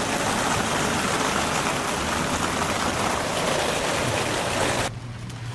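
Torrential rain pouring down, a steady heavy hiss that cuts off abruptly near the end.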